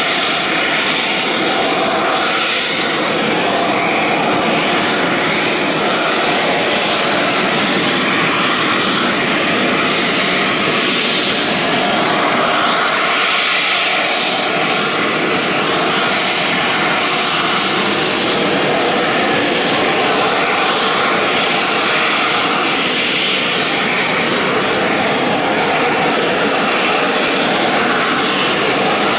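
An AV-8B Harrier II's Rolls-Royce Pegasus turbofan runs loud and steady at high power as the jet hovers and then moves off into slow forward flight. The jet noise swells and eases slowly as the aircraft moves.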